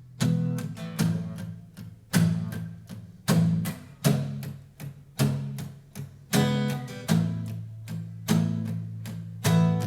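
Instrumental intro of a live worship song: chords struck in an uneven rhythm about once or twice a second, each ringing out and fading before the next.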